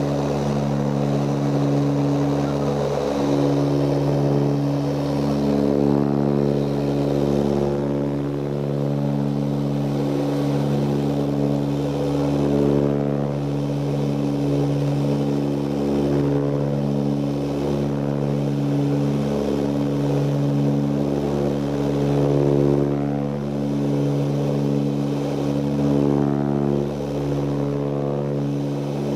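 Cabin drone of an Ilyushin Il-18 in flight: its four Ivchenko AI-20 turboprop engines and propellers running steadily, a deep hum made of several steady tones that slowly beat and waver in level.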